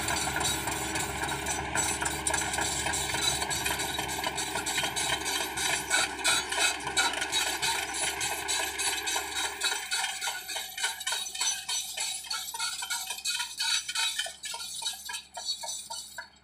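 Excavator engine running steadily, its low rumble cutting away about ten seconds in, leaving a quieter run of rhythmic clinking ticks.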